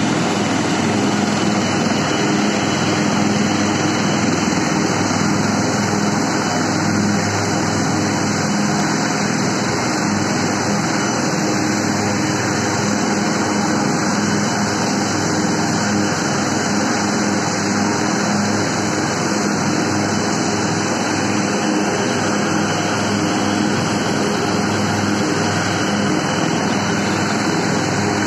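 Military helicopters running on the ground: a steady, loud rush of turbine engines and rotors.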